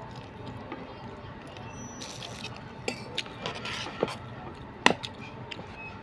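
Wet chewing sounds, then a metal spoon scraping and clinking against a metal cup of rice in a few short clicks, the sharpest clink just before five seconds in.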